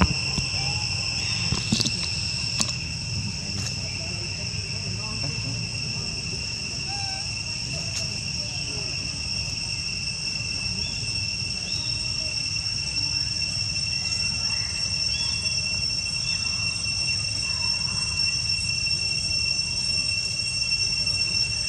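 Insect chorus: a steady, unbroken high-pitched drone, with a low rumble underneath and a few sharp clicks near the start.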